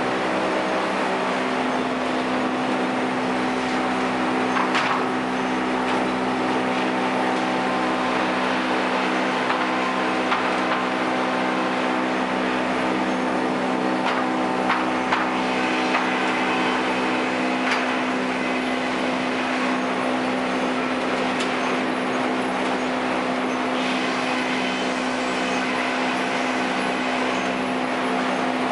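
Sawmill machinery running with a steady, pitched hum, broken by a few sharp knocks. A higher whine joins about halfway through and again near the end.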